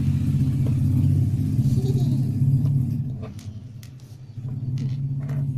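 A steady low engine rumble, like a motor vehicle running nearby, fades about three seconds in and returns about a second later. A few light clicks come from small plastic Lego pieces being handled.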